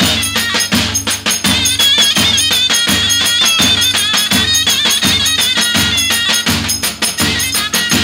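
Zurna playing a wavering, piercing folk dance melody over two davul drums, deep strokes of the heavy beater a little under twice a second with quick stick taps between them.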